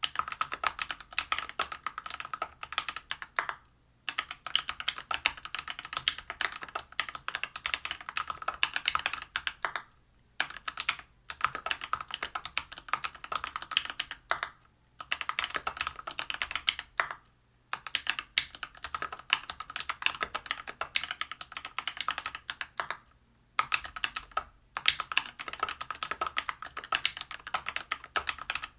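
Typing on a Whale 75 mechanical keyboard with Everglide BeesWax 67g linear switches lubed with Krytox 205g0, in a brass plate with PBT keycaps: fast, continuous keystrokes with brief pauses every few seconds.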